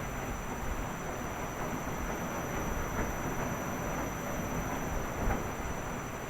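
Washing machine running with a steady rumble, a thin steady high whine above it, and two soft knocks, about three seconds in and a louder one a little past five seconds.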